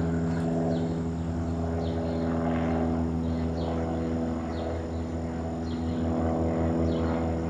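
Small single-engine, high-wing propeller plane flying overhead, its engine and propeller giving a steady drone. Faint short high chirps repeat above it about once or twice a second.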